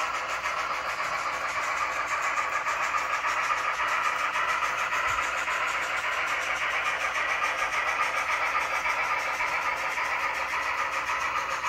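N scale model train running steadily along the track: its small motor and metal wheels on the rails make an even, unchanging mechanical noise.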